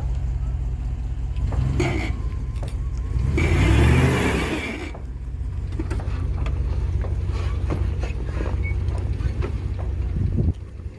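Dodge Durango running with the bad-sounding rear axle: a steady low drivetrain hum with light clicking, and a louder swell that rises and falls in pitch about three to five seconds in. The noise is taken for a rear axle fault.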